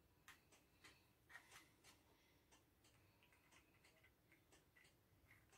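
Near silence with faint, irregular small clicks and taps of plastic parts as hands fit a fastener onto an RC car's wing.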